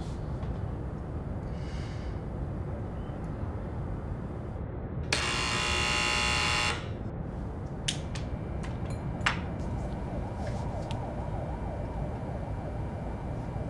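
Steady low background rumble with a loud electric buzz about five seconds in, lasting about a second and a half and cutting off sharply, followed by a few sharp clicks.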